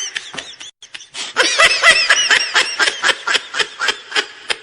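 Meme laughter sound effect: rapid, high-pitched giggling laugh in quick repeated bursts, with a short break just before one second in.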